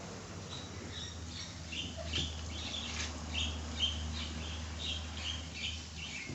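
A bird chirping over and over, short falling high notes a few times a second, starting about a second and a half in, over a steady low hum.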